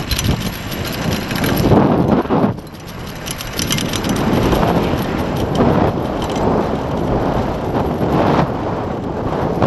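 Wind rushing over the microphone of a rider's camera while speeding down a zipline at about 20 to 28 mph. The rush dips briefly about three seconds in.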